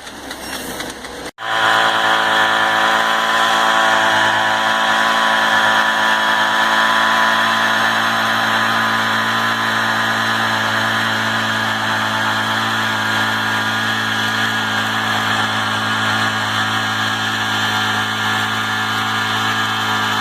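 An engine running steadily at one constant speed, starting abruptly about a second in.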